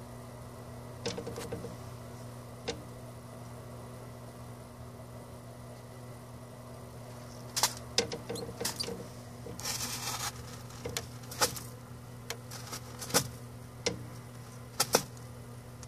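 Nile monitor lizard seizing and chewing a pinky mouse: scattered sharp clicks and a short rustle from about halfway on, over a steady low hum.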